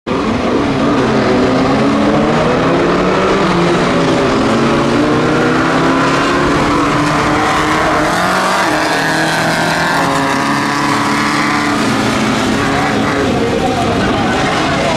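Engines of several Class 9 off-road race buggies revving hard on a dirt track, their overlapping engine notes climbing and falling in pitch as they accelerate and shift.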